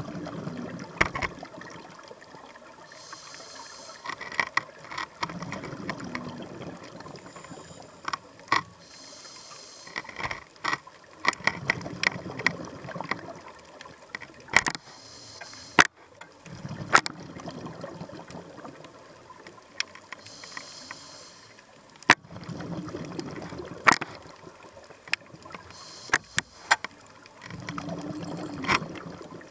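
Underwater ambience heard through a camera housing: low rumbling surges of breath and bubbles from a snorkeller or diver, returning about every five to six seconds, with sharp clicks scattered throughout.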